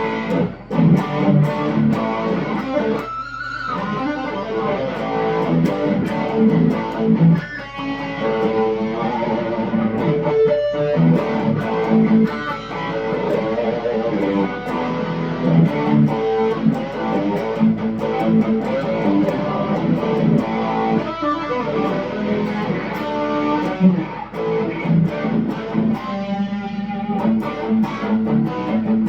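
Electric guitar played through a Marshall Origin 20C tube amp boosted by an Ibanez Tube Screamer and a Missing Link Audio AC/OD overdrive pedal stacked together: overdriven chords and riffs with notes left to ring.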